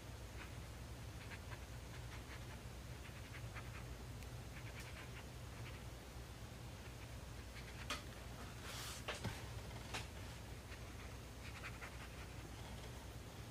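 Faint scratching and tapping of a water brush working wet paint on mixed-media sketchbook paper, over a low steady hum. About eight seconds in comes a short breathy burst with a few knocks around it.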